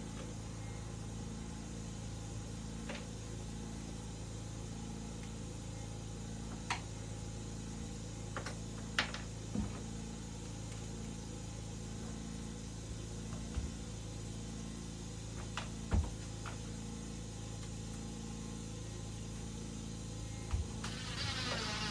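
A small engine running steadily with a low hum, with a few light knocks and clicks over it.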